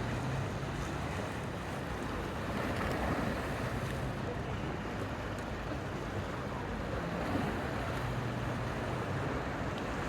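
Sea waves washing in on a beach, with wind on the microphone and a faint low hum that comes and goes underneath.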